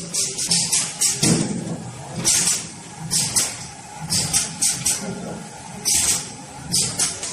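Automatic servo bottle screen printer running through its cycle: repeated short, sharp hisses of air from its pneumatic valves and cylinders, coming in irregular clusters over a low machine hum.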